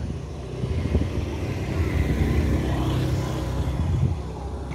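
A road vehicle passing close by, its engine and tyre noise swelling over the first few seconds and easing off near the end.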